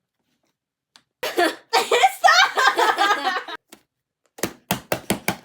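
A person laughing, then a quick run of sharp, wet clicks and pops, several a second, from homemade slime being squished and snapped in the hands.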